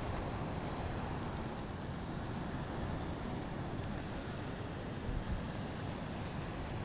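Steady wind blowing with a low rumble of wind buffeting the microphone.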